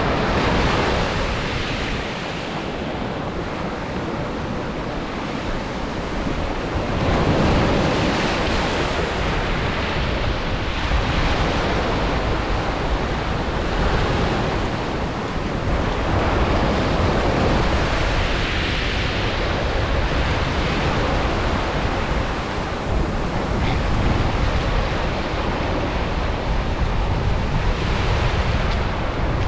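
Ocean surf breaking on a beach, the wash swelling and easing every few seconds, with wind rumbling on the microphone.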